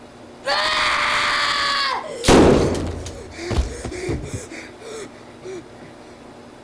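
A high, held scream for about a second and a half, cut off by a sudden loud crash or slam with a ringing tail, then a few smaller thuds and short cries.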